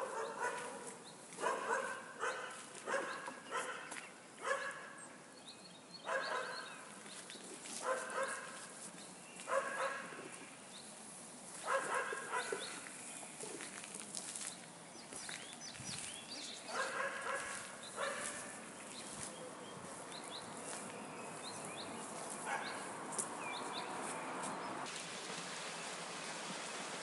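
A dog barking repeatedly, in bouts of short barks: a quick run of about two barks a second at first, then single barks a second or two apart, stopping about two-thirds of the way through. A steady rushing noise builds in the last few seconds.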